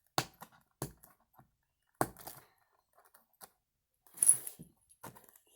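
Hands handling and working at a small plastic toy package: a few sharp clicks and taps, then a short, louder rustle about four seconds in, as the packaging is being opened.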